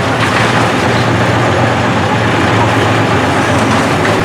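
Heavy machinery engine running steadily, a low drone under a noisy haze.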